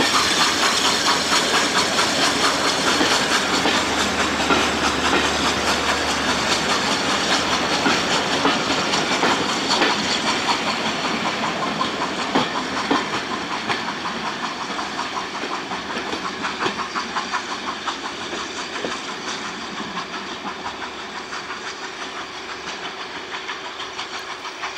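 Steam-hauled train of coaches rolling past and pulling away behind a Hunslet 0-6-0 saddle tank locomotive, carriage wheels rattling over the track with steam hiss from the engine. The sound fades steadily as the train draws off.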